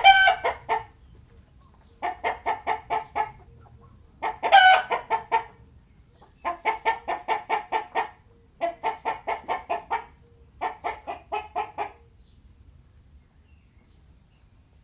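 Domestic hen clucking in repeated runs of quick clucks, about six runs roughly two seconds apart, the one about four seconds in the loudest.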